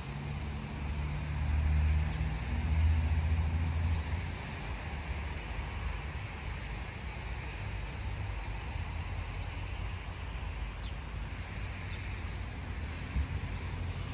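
Outdoor city ambience: a steady wash of distant road traffic, with a louder low rumble from a passing motor vehicle during the first four seconds.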